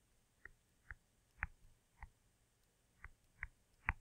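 Faint, irregular clicks from a pointing device, about seven of them, as the fraction 3/4 is handwritten into a tape diagram on screen.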